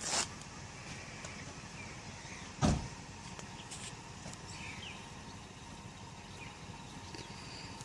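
Two short knocks, the second, about two and a half seconds later, a heavier thump and the loudest sound, over a steady background hiss.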